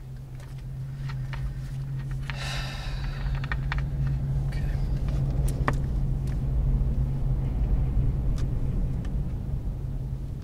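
A strong gust of wind buffeting a parked car, heard as a low rumble that swells and then eases off, over a steady low hum. The gust is strong enough to push and sway the car.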